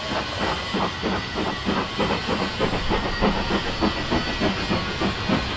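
Steam locomotive exhaust beats from BR Standard Class 4MT 2-6-0 No. 76017, a two-cylinder engine working under steam: an even, rapid chuff of about five beats a second over a steady steam hiss.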